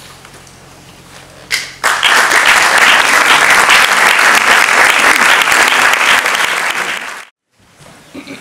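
Audience applauding: a faint room hum, then about two seconds in a loud, dense clapping that runs for about five seconds and cuts off abruptly near the end.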